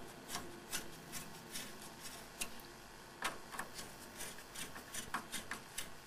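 Small irregular clicks and light scraping as a CPU cooler is handled and fitted over the processor on a motherboard: plastic and metal parts knocking and rubbing against each other and the board.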